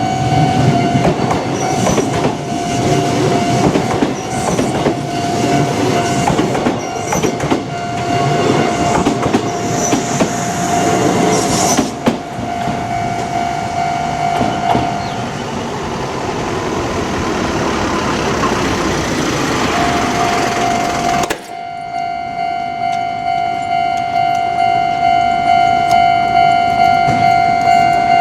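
Japanese level-crossing alarm bell ringing steadily while an electric train passes over the crossing with rail clatter and rumble. About three-quarters of the way through, the train noise drops away suddenly, leaving the crossing bell ringing alone in a steady pulse of about one and a half strokes a second.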